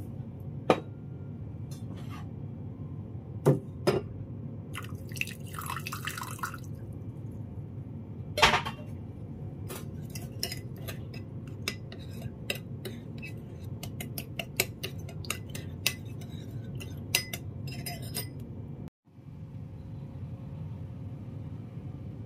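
Metal spoon clinking against a small ceramic bowl: a few separate taps, a short pour of water about five seconds in, then quick repeated clinks as cornstarch, sugar and sauce are stirred into a slurry, stopping a few seconds before the end.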